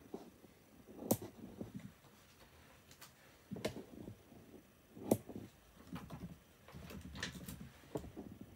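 Hands handling small pieces of card stock on a craft mat: quiet rustling and soft taps, with several short sharp clicks spread through.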